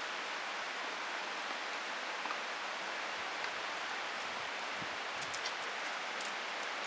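Steady outdoor hiss of background noise, with a few faint light clicks about five seconds in.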